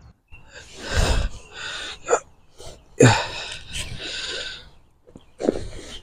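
A person's breathy vocal noises in several short bursts, like heavy exhales or grunts, without words.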